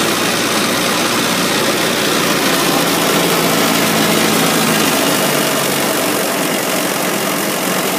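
Small inboard engine of a wooden 1960s salon boat running steadily under way, heard close up from beside its open engine compartment.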